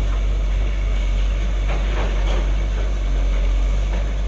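Caterpillar 320 hydraulic excavator's diesel engine idling with a steady low rumble.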